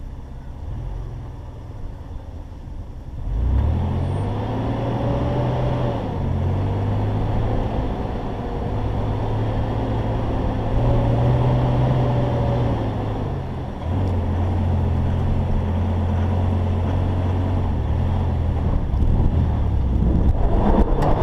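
Mitsubishi Pajero Evolution's 3.5-litre V6 pulling the truck up a steep dirt climb. The engine note comes in strongly about three seconds in, holds fairly steady, drops lower about fourteen seconds in, and rises again near the end.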